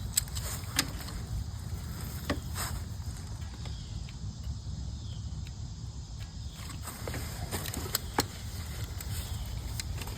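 Scattered sharp clicks and taps of hand tools being handled, over a steady low rumble.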